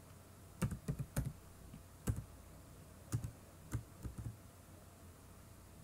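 Computer keyboard being typed on: single keystrokes and short runs of clicks, with pauses between them.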